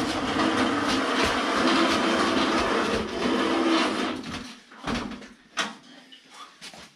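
A diesel space heater on a metal folding stand being dragged across a concrete floor: a steady, rough scraping noise for about four seconds, then two sharp knocks.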